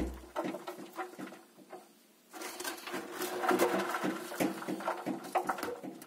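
A hand crumbling and breaking apart a head of raw cauliflower, the florets crackling and snapping in irregular bursts, with a short pause about two seconds in.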